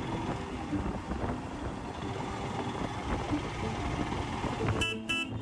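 Royal Enfield Himalayan 411's air-cooled single-cylinder engine running steadily under way, mixed with wind and road noise. Near the end a horn beeps three times in quick succession.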